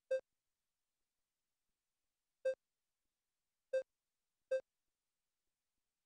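Short, identical electronic key beeps from a Samsung HERA W9 ultrasound system's controls, one for each button press: five beeps at uneven intervals.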